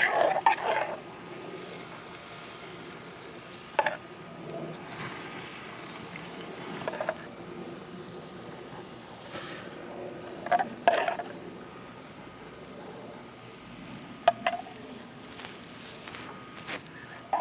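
A metal spoon clinking and tapping against a dish a few times as butter sauce is spooned onto grilling artichokes, over a steady low hiss.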